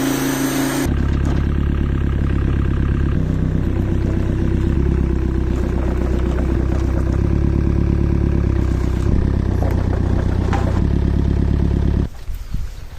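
Engine of a power washer running steadily at constant speed, then cutting off abruptly near the end.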